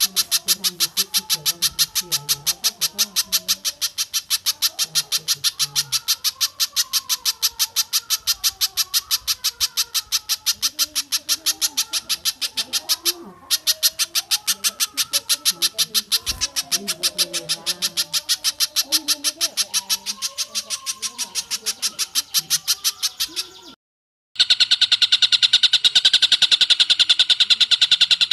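Looped recording of spiderhunter and tengkek buto kingfisher calls: a rapid, even string of sharp high notes that breaks briefly about halfway. Near the end it cuts off and a different repeated call, higher and steadier, takes over.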